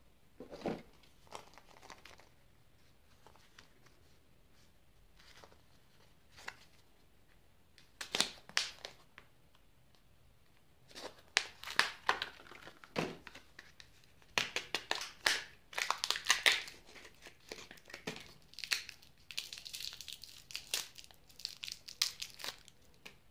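Foil wrapper of a chocolate surprise egg crinkling and tearing as it is peeled off by hand. The crackling is sparse at first and becomes dense from about halfway through.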